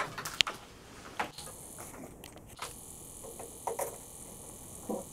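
Faint scattered clicks and knocks of a cable being handled and plugged into a personal monitor mixer, with one sharp click about half a second in.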